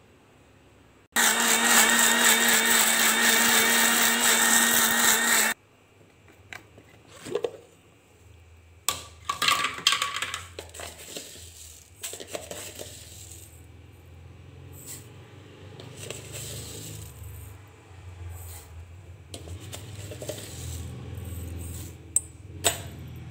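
Electric mixer grinder running for about four seconds as it grinds soaked dried red chillies to a paste, then stopping. Short clinks and handling noise from the steel jar and lid follow.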